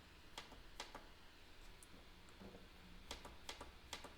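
Faint clicks of buttons pressed on a Dahua NKB1000 network keyboard as a login password is keyed in: a few scattered presses in the first second, then a quicker run of presses about three seconds in.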